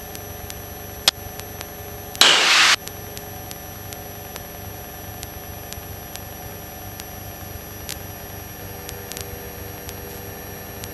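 Light aircraft's piston engine running steadily, heard through the headset intercom. About a second in there is a sharp click, and about two seconds in a loud half-second burst of hiss like a radio squelch.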